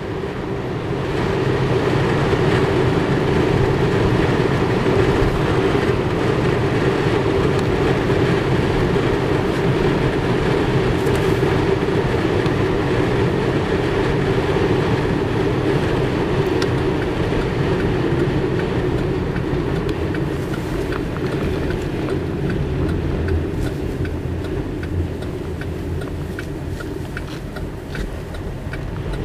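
Steady road and tyre noise with a low hum inside a 2010 Chevy Cobalt's cabin as it drives a snow-covered highway; light ticks come in over the last several seconds.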